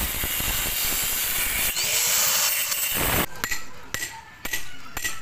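Angle grinder cutting into a concrete post, a steady grinding noise that cuts off about three seconds in. Then a hammer strikes a steel chisel lodged in the concrete, several sharp metallic strikes in quick succession.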